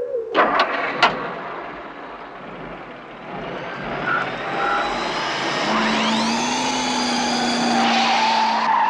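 A vehicle sound with a jet-like whine: a few sharp clicks in the first second, then a running noise. About six seconds in, a steady hum sets in and a whine sweeps upward and then holds high.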